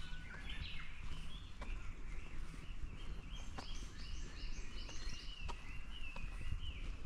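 Wild birds singing and chirping outdoors in a steady chain of short calls, with a quick series of rising notes in the middle and one longer drawn-out call near the end. A faint sharp click comes every couple of seconds, over a low steady rumble.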